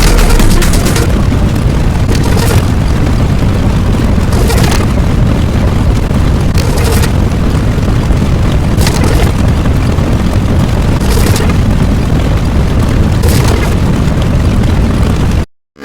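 Explosion sound effect: a loud, continuous heavy rumble with a fresh blast about every two seconds, cut off by a brief silence near the end.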